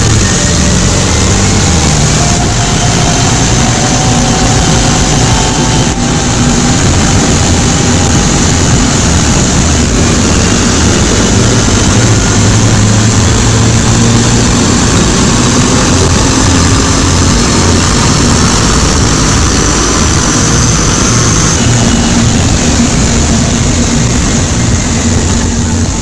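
Mercedes-Benz W205 C300's turbocharged four-cylinder engine running under load on a chassis dynamometer, its wheels driving the dyno rollers. The engine and roller noise is loud and steady, and the engine note rises in places.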